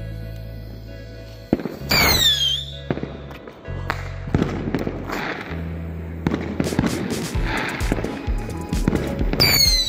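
Whistling firework rocket going off: a sharp crack, then a whistle falling in pitch about two seconds in, followed by hissing with scattered cracks, and a second falling whistle near the end. Background music plays underneath.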